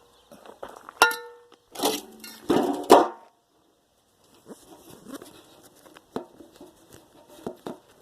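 Pieces of scrap metal being handled: a sharp metallic clank about a second in that rings briefly, then two louder scraping clatters, followed by lighter knocks and clicks.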